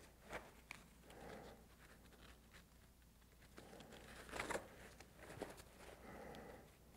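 Faint rustling of nylon pack fabric and webbing straps being handled and threaded through a backpack frame, with a few soft clicks, the loudest about four and a half seconds in.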